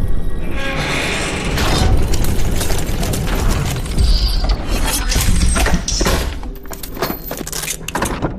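Rapid sharp impacts and metallic clatter from an AK-47 rifle's action, over background music.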